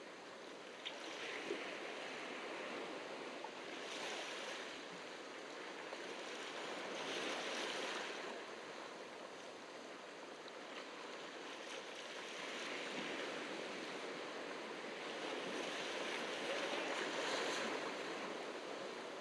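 Ocean waves breaking and washing on a beach, the surf swelling and easing several times.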